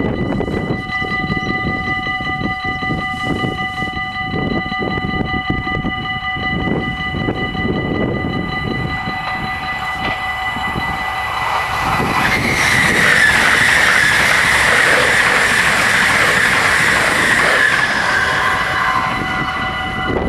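Level-crossing bells ringing steadily. About twelve seconds in, an NS SLT Sprinter electric train passes with a loud rush of wheel and motor noise lasting about seven seconds, almost covering the bells, which ring on after it.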